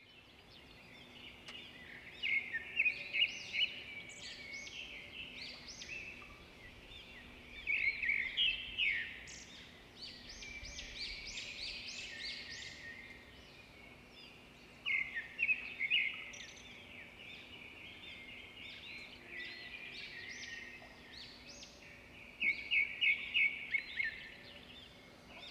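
Birds singing and chirping in quick trills that come in bursts every few seconds, over a faint steady hum.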